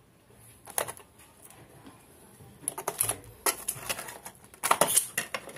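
Crisp roast pork crackling crunching as it is eaten by hand: four spells of sharp crackling, the loudest near the end.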